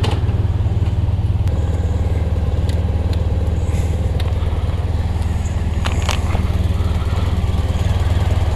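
Motorcycle engine idling steadily, with a few light clicks over it.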